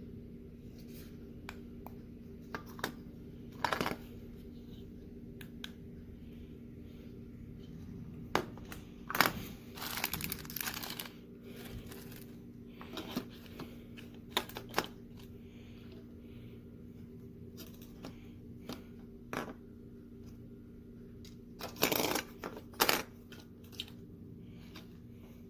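Scattered clicks, taps and rustling of handling, loudest in two clusters about a third of the way in and near the end, over a steady low hum.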